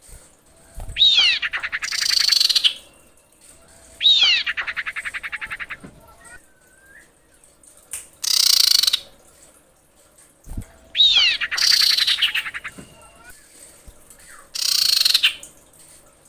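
Female common iora calling. Three fast rattling trills, each opening with a falling whistled note, alternate with harsh, rasping buzzes. This is the female's call to draw a male.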